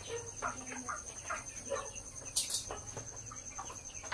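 A flock of broiler chickens clucking, with many short, overlapping calls. A brief rustle comes about two and a half seconds in, over a steady faint high tone.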